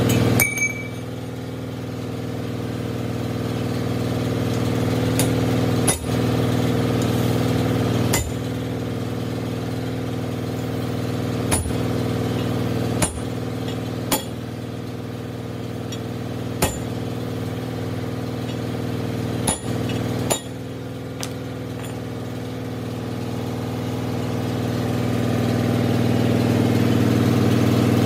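Steady hum of workshop machinery running, with occasional sharp metal clinks and knocks as steel parts are fitted onto a drive shaft tube. The hum grows louder near the end.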